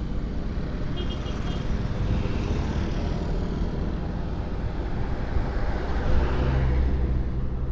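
Road traffic passing on a highway: vehicles go by one after another, swelling and fading. Near the end a large engine runs close and low.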